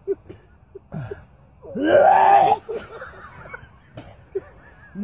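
A man gagging and retching at the stench of an opened tin of surströmming (fermented herring): small gasps and groans, then one loud, strained heave about two seconds in.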